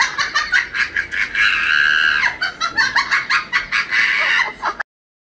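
Chicken clucking in quick repeated calls, with one longer held squawk about two seconds in. It cuts off suddenly near the end.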